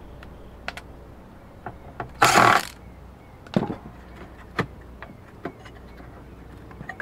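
Ryobi cordless screw gun running in one short burst about two seconds in, backing out a screw that holds a daughter board. A few light clicks and taps of parts and tools being handled follow.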